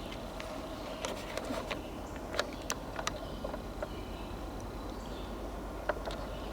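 Irregular sharp clicks and small snaps, like twigs and dry debris cracking underfoot as someone steps through forest litter, thickest in the middle of the stretch.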